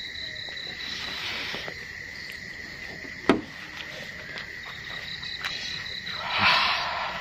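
Crickets chirping at night: a steady high trill with a faster pulsing trill above it that comes and goes. A single sharp click about three seconds in, and a short breathy rush near the end.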